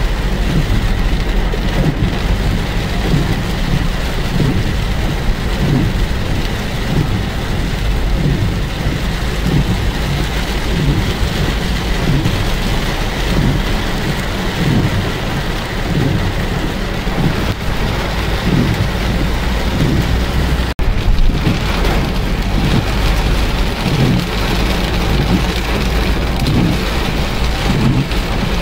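Heavy monsoon-style downpour: a steady, dense rain hiss with an uneven low rumble underneath, broken by a brief dropout about two-thirds of the way through.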